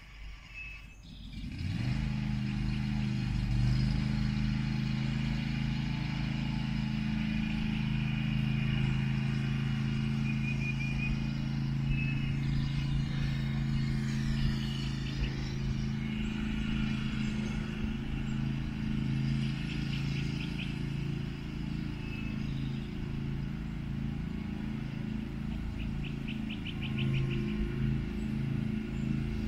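John Deere LA135 riding lawn mower's engine starting about two seconds in, then running steadily, its note turning uneven near the end. Birds chirp briefly in the background.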